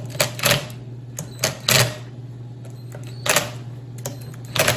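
Cordless drill-driver snugging the crankcase bolts lightly in about seven short bursts, the loudest near the middle, over a steady low hum.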